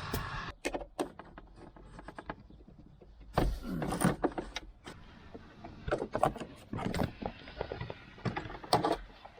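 Irregular metallic clicks and clinks of hand tools and socket wrenches working on seat-belt mounting bolts, with a louder cluster of knocks about four seconds in.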